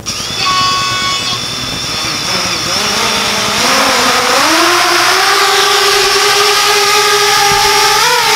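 Brushless motors of an FPV racing quadcopter spinning its propellers as a high-pitched whine. The pitch rises over a couple of seconds as the motors spool up, holds steady, then climbs briefly near the end as the quad lifts off the floor.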